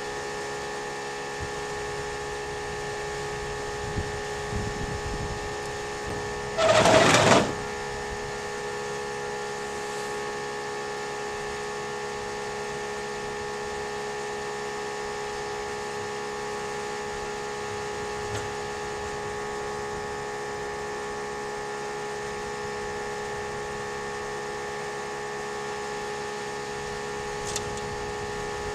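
A steady machine hum made of several fixed tones. Once, about a quarter of the way in, a loud burst of noise lasting about a second rises over it, and there are a few faint clicks.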